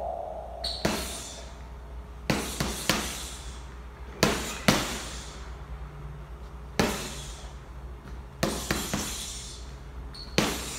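A series of sharp knocks, about ten at irregular intervals, some in quick pairs or triples, each with a short ringing tail.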